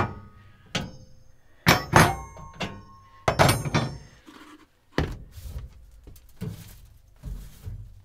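Metal gas-stove burner grates clunking down onto a wooden countertop, about five knocks in the first four seconds, several with a brief metallic ring. Softer scuffing follows as the stovetop is wiped down.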